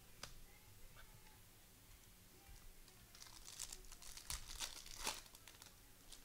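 Faint crinkling and tearing of a plastic trading-card pack wrapper being ripped open. A flurry of crackles builds in the second half, with the sharpest rips near the end.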